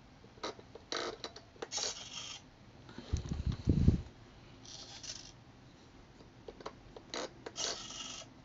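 Small servo in a 1/16-scale E-50 tank model's turret driving the gun barrel's elevation: three short whirring runs of about half a second each, with sharp clicks between them. A low rumbling thump about three seconds in is the loudest sound.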